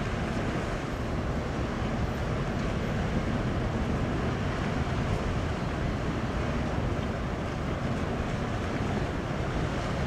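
Steady low rumble of a cruise ship coming into harbour, mixed with the wash of the sea and wind noise on the microphone.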